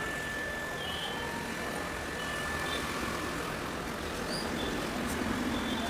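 Steady background hum like distant traffic, with a constant high-pitched tone and a few short, faint chirps.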